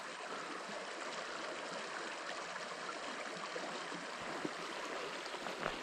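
A small river running over shallow riffles: a steady rush of water, with a couple of faint ticks near the end.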